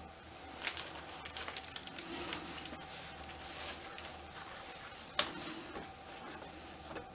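Soft rustling of fabric and a few light clicks as hands handle a doll's costume coat and clothes, with two sharper clicks, one near a second in and one about five seconds in.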